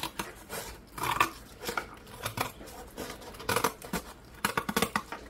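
Scissors cutting through corrugated cardboard: about half a dozen uneven snips, roughly one a second.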